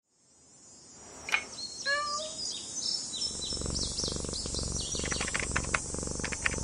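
Small birds chirping and singing: many quick, high chirps, several falling in pitch, fading in at the start.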